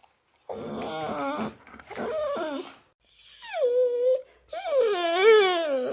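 A dog whining: four cries in a row after a short pause, the first two short and wavering, the third sliding down in pitch and then holding, the last a long whine that wavers up and down.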